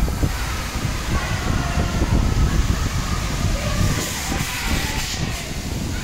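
Wind rumbling on the microphone while riding a spinning jets fairground ride, over the ride's running and the hall's fairground noise, with a brief hiss about four seconds in.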